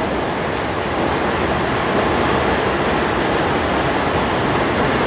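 Hail falling hard in a hailstorm: a dense, steady rush of noise with no single hits standing out.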